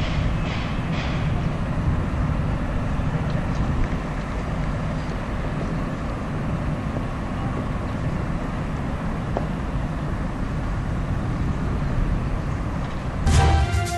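Class 165 diesel multiple unit's underfloor diesel engines running as the train moves along the line, a steady low drone with rail noise. Music cuts in just before the end.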